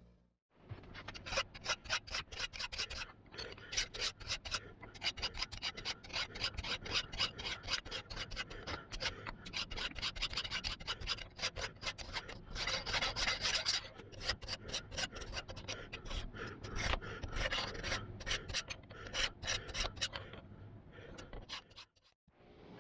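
Rapid back-and-forth abrasive strokes worked by hand on the old pry bar, about four or five a second, with a few short pauses and a stop near the end.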